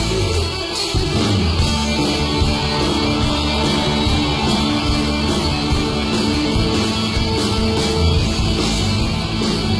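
Live hard-rock band playing: distorted electric guitars over bass and a steady drum beat.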